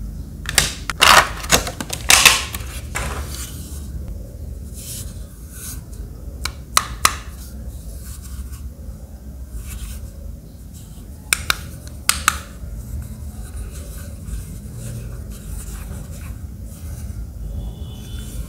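Metal coin-cell batteries and a red plastic toy bow tie being handled: sharp clicks and scrapes in a few clusters, the loudest in the first three seconds, with two more short groups about seven and twelve seconds in.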